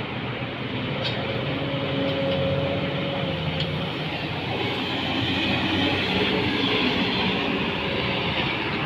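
Kobelco SK350 hydraulic excavator running, its diesel engine droning steadily with a few steady tones that come and go.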